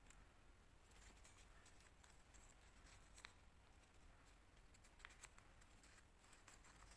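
Faint crinkling and rustling of origami paper being folded and pressed between fingers, with a few soft crisp ticks, the clearest about three and five seconds in.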